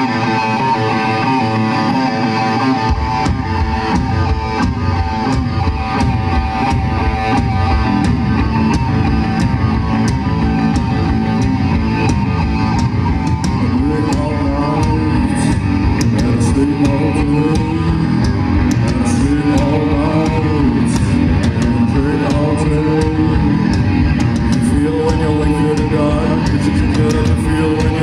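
Live rock band playing an instrumental passage: a repeating electric guitar riff, joined about three seconds in by bass guitar and drum kit, after which the full band plays on loudly.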